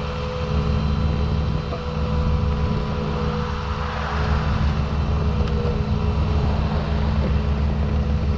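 A motor vehicle's engine running steadily: a low, even hum with a faint steady whine above it.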